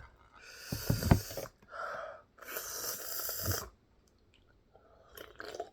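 Two long, forceful breaths through the mouth, each lasting about a second, with a loud thump during the first. They are the heavy breathing of a mouth burning from spicy noodles.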